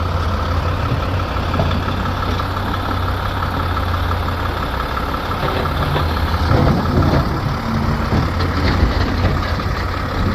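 Heavy truck's diesel engine idling steadily, with louder, rougher stretches about six and a half and nine seconds in.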